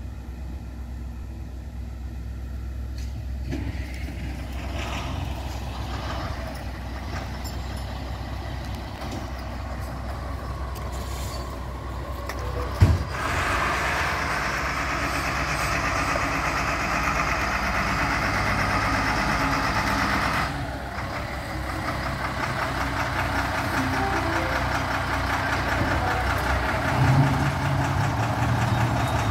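Fire trucks' engines idling and running as brush units pull out of the station bays, with a sudden loud burst about 13 seconds in.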